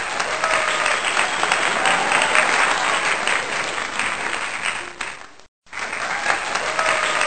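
Crowd applauding, with voices mixed in. It cuts out completely for a moment about five and a half seconds in, then resumes.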